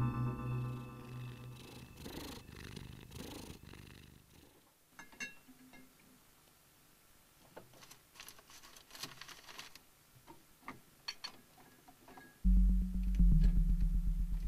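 A cat purring loudly, a low pulsing rumble that starts suddenly about twelve seconds in, after soft music fades out and a quiet stretch of faint clicks and rustles.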